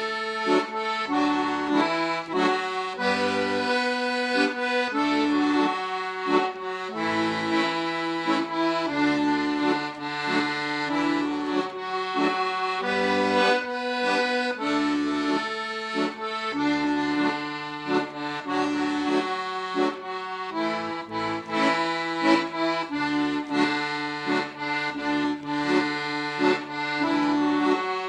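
Solo accordion playing a traditional Scottish Gaelic tune: a melody over a regular left-hand accompaniment of low bass notes and chords.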